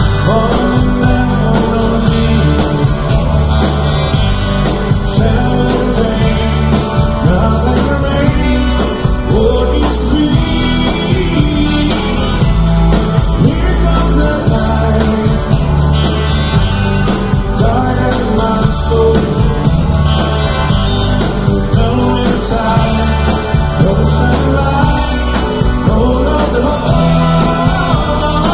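A live country-rock band playing loudly, with drums, acoustic guitars, upright bass and keyboard under a man singing lead. The sound is dense and heavy in the bass.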